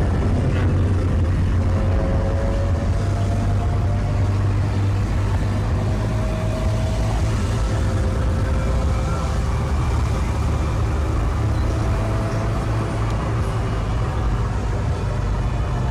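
Car cabin noise while driving: a steady low engine and road rumble, with a faint whine that rises and falls a little.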